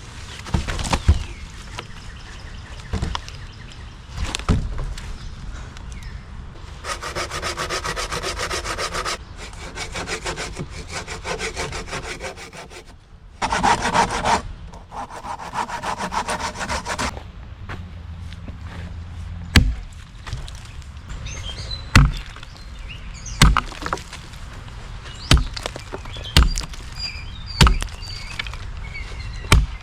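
Hand saw cutting into a log in runs of quick back-and-forth strokes, then an axe chopping into the wood, single blows about every second and a half through the second half.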